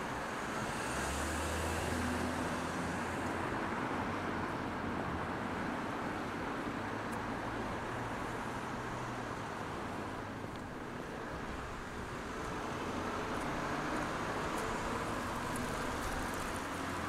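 Road traffic: cars passing by with engine hum and tyre noise, rising and falling as they go.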